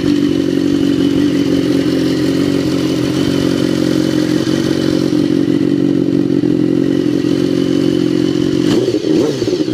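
BMW S1000RR's inline-four engine idling steadily and loudly through its new aftermarket exhaust, with a brief rise and fall in pitch near the end.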